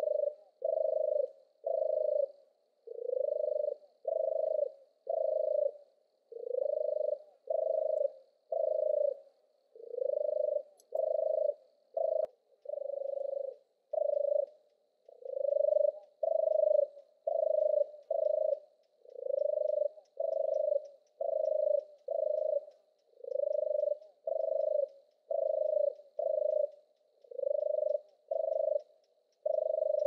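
European turtle dove singing its deep purring song: a long run of short, rolling notes, about one a second, sometimes coming in pairs.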